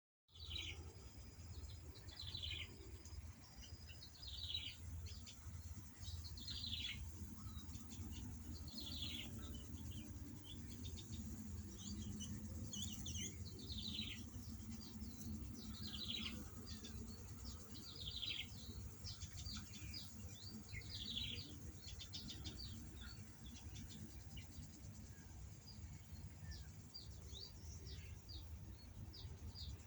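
Birds calling: one bird repeats a short descending call about every two seconds, over scattered quick chirps, with a steady low rumble underneath.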